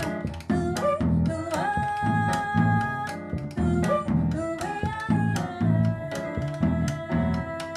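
Small Brazilian jazz group playing a chacarera live: a held, gliding lead melody line over a pulsing double bass, piano and drum kit with frequent cymbal strokes.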